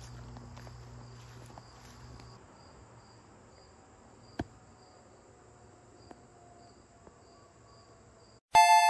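Outdoor insect chorus: a steady high trill with another insect chirping about twice a second underneath, faint and even. A single sharp click about four and a half seconds in.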